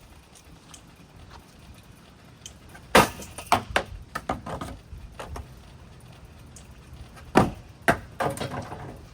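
A ceiling fan being smashed: two hard blows about four seconds apart, each followed by a second or so of rattling and clattering from loose metal and plastic parts.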